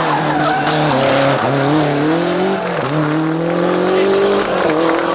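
Group A Lancia Delta rally car's turbocharged four-cylinder engine accelerating hard out of a corner. The revs climb and drop sharply three times as it shifts up through the gears.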